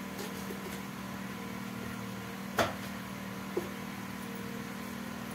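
A steady low mechanical hum, with one sharp click about two and a half seconds in and a fainter click about a second later.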